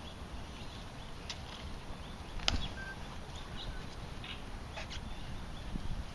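Ceremonial guards' drill on a stone plaza: one sharp click of rifle or heel about two and a half seconds in, with fainter clicks and taps before and after, over a low steady outdoor rumble.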